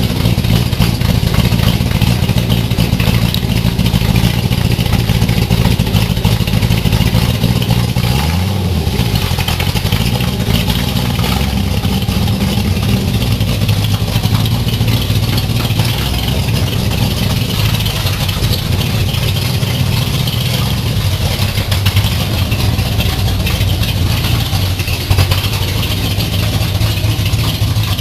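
1965 Corvette's V8 engine running at a steady idle just after starting; its pitch dips briefly and comes back up about eight seconds in.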